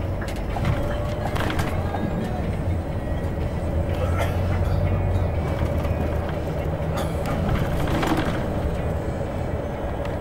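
City bus driving along a street, heard from inside the cabin: a steady low engine and road rumble with a steady whine above it and a few short knocks.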